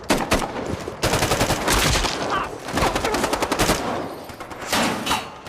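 Automatic gunfire in a film shootout: a few quick shots, then a long rapid burst from about a second in to nearly four seconds, and a short burst near the end.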